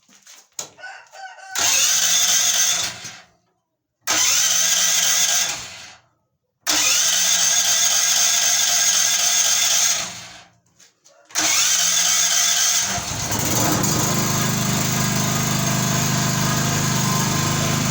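A 5 kVA generator engine running on biogas being cranked four times, each try lasting one to three seconds with short pauses between. About 13 seconds in it catches and runs with a steady hum.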